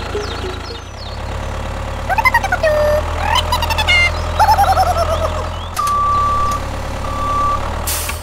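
Tractor engine running steadily, with two spells of warbling, rising and falling pitched sounds in the middle and two beeps of one steady high tone near the end, the first longer.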